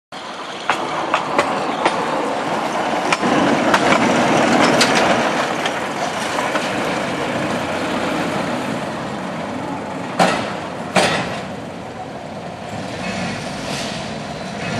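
Small rail motor car (track speeder) running and rolling along yard track, with sharp clicks as its wheels cross rail joints. Two louder clacks come about ten and eleven seconds in.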